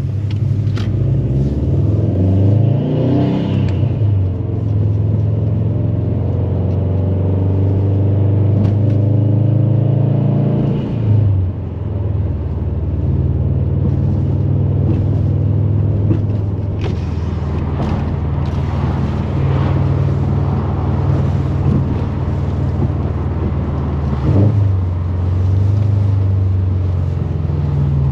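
Turbocharged flat-four boxer engine (EJ257) of a Stage 2 tuned Subaru WRX STI heard while driving. It climbs in pitch under acceleration about two to four seconds in, drops with a gear change or lift-off around eleven seconds in, changes again around twenty-four seconds in, and runs steadily in between.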